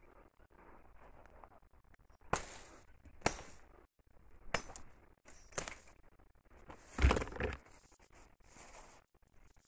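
Footsteps crunching through dry grass and brush, about one sharp crackle a second, with a louder, longer crackle of stems snapping about seven seconds in.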